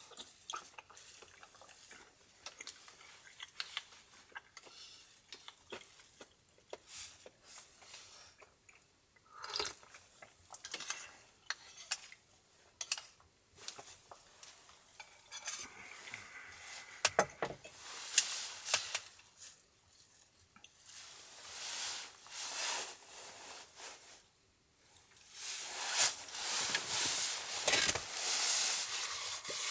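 A metal spoon clinking and scraping against a small stainless steel bowl as someone eats from it, in short irregular taps. Over the last few seconds the sound gets louder and busier, with clatter and rustling as the bowl is set down on a wooden table.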